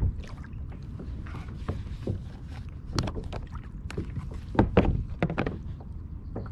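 Scattered clicks and knocks of fishing gear being handled in a kayak, over a steady low rumble, with a louder cluster of knocks just before five seconds in.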